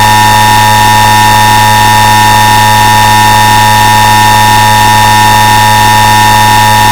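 Emergency Alert System attention signal: a loud, steady two-tone alarm held without a break, distorted and with a low buzz beneath it, cutting off right at the end.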